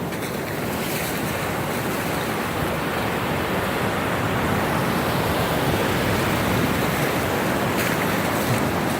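Surf breaking on a beach, a steady wash of waves with wind on the microphone, swelling slightly louder past the middle.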